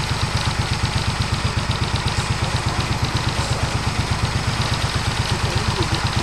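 Portable sawmill's engine running steadily, with an even pulsing beat of about six a second.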